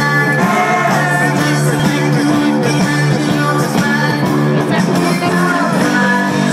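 A rock band playing live: electric guitars, drums and vocals. It is heard through a phone's microphone in a concert hall, loud and steady, with little bass.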